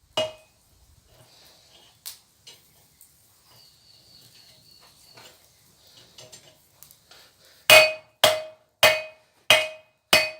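Hand hammer striking hot steel bar on an anvil, squaring up 12 mm rebar: one ringing blow at the start, a few light taps, then from about eight seconds in a steady run of ringing blows, about one and a half a second.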